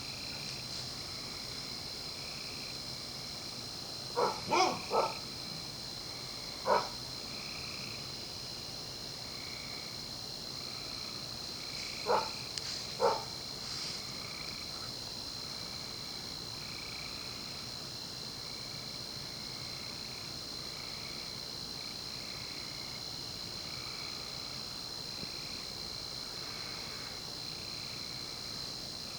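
A dog barks six times in three groups: three quick barks about four seconds in, one more a couple of seconds later, and two around twelve seconds in. Under the barks runs a steady chorus of crickets and other insects with a regular pulsing chirp.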